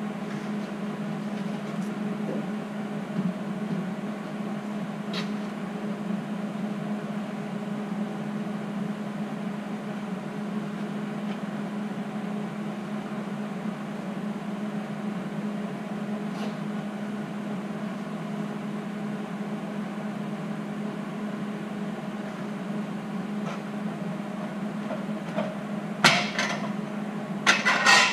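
Steady electrical hum of shop equipment. Near the end come a few sharp metal clanks as a tall underhoist support stand under the truck is adjusted.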